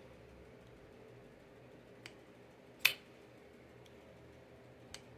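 Kubey Ruckus liner-lock folding knife being worked by hand: one sharp click of the blade swinging open and locking about three seconds in, with a faint tick shortly before and another near the end.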